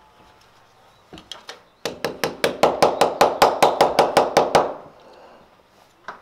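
Claw hammer tapping a wooden shim into the gap beside a door frame: a few light taps, then a quick steady run of about eighteen strikes, some six a second, and one more tap near the end.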